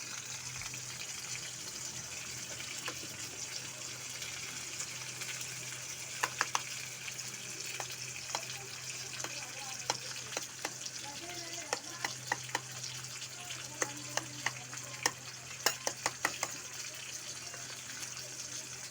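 A dal tempering of mustard seeds, red chillies and curry leaves sizzling in hot oil, a steady hiss with sharp pops and crackles that come thick from about six seconds in until near the end.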